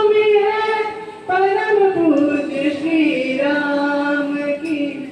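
A man singing a Hindi Ram bhajan unaccompanied into a microphone, in long held notes that glide between pitches, with a short breath about a second in.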